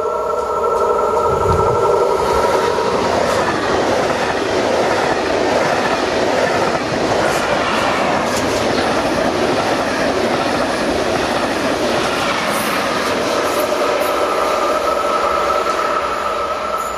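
SNCB class 27 electric locomotive and double-deck coaches passing close at speed: a loud rumbling roar of wheels on rail with clicks over the rail joints. A steady high whine sounds at the start and again in the last few seconds.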